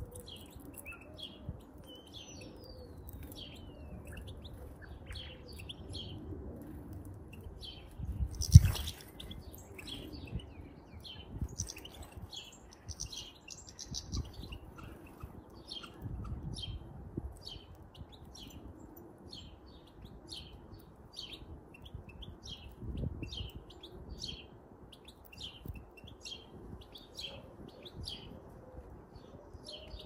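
Small garden birds chirping and twittering, with many short high calls throughout and a falling whistled note near the start, over a steady low background rumble. A loud thump sounds about eight and a half seconds in.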